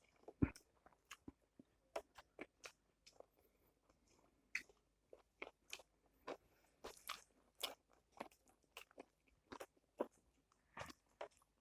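A person chewing a mouthful of dried buffalo meat (sukuti) with cabbage and rice: soft, irregular crunches at about two a second, with hush between them.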